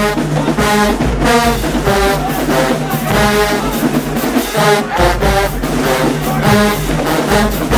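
Marching band playing a loud, brass-heavy tune: low bass horns under trombones and trumpets in short rhythmic phrases, with drums keeping the beat.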